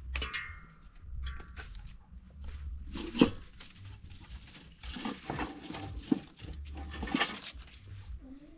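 Goat bleating several times, short calls spread over a few seconds, the loudest about three seconds in.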